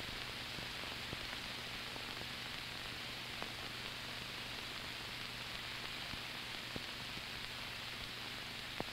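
Steady hiss of an old film soundtrack with a low, steady hum beneath it and a few faint clicks.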